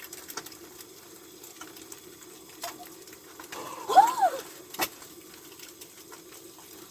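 Food frying in a pan: scattered crackling pops over a steady low hum. About four seconds in there is a short rising-and-falling vocal sound, then a sharp click.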